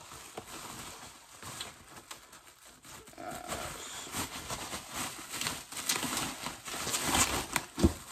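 Handling noise of kitchenware and packaging being moved about: rustling with scattered clicks and knocks, growing busier after about three seconds, with one heavier thump near the end and a short hum-like sound about three seconds in.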